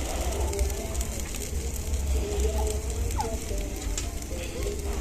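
Barbecue-sauced jerk chicken sizzling on a grill, a steady hiss.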